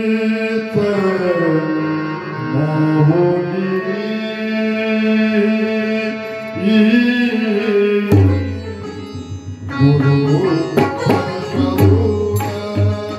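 A man singing a Marathi devotional song to Vitthal in a powerful voice, drawing out long held notes that bend in pitch. About eight seconds in, a hand drum joins with deep, rhythmic strokes.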